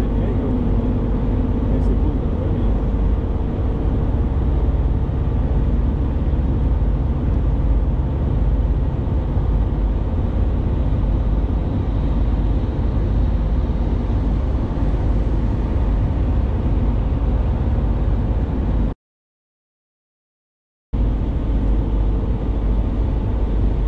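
Steady road and engine noise from inside a moving vehicle at highway speed, with a constant hum over the low rumble. The sound cuts out completely for about two seconds near the end, then resumes.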